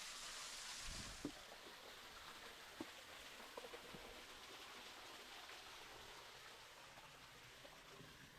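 Faint steady hiss of running stream water, which fades after about a second, with a few soft knocks scattered through it.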